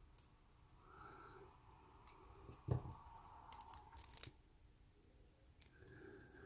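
Faint, sparse clicks and taps of small lock parts (pins, springs, tweezers) being handled. One sharper click comes near the middle, followed by a short cluster of light ticks.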